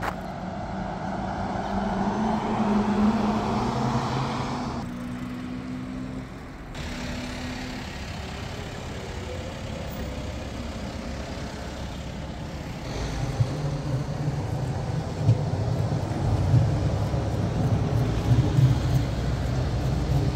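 Street traffic with an electric tram rolling past: a vehicle's steady hum swells and fades over the first few seconds, then a low rumble with irregular knocks grows louder in the second half as the tram goes by on its rails.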